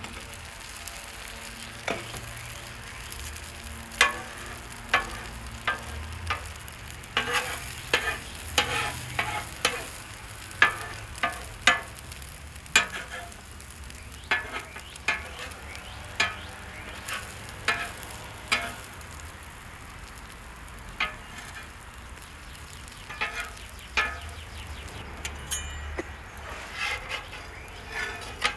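Egg batter with shredded vegetables sizzling as it fries on a steel flat-top griddle, with many sharp taps and scrapes of metal spatulas against the plate, busiest through the middle and sparser near the end.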